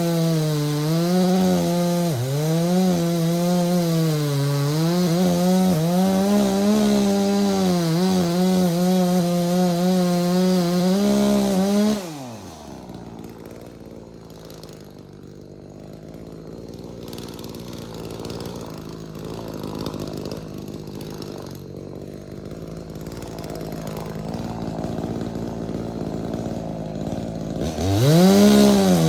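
Two-stroke chainsaw running at high revs and cutting wood, its pitch wavering under load. About twelve seconds in it drops off to a low idle for around fifteen seconds, then revs back up to full speed near the end.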